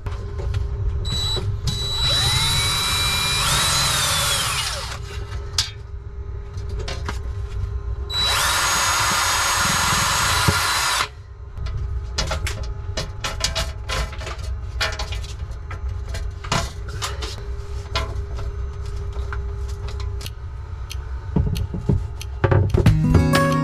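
Power drill running in two bursts of a few seconds each, with a whine that changes pitch, driving screws to fasten a fridge compressor's mounting bracket. Knocks and clatter of handling between the runs.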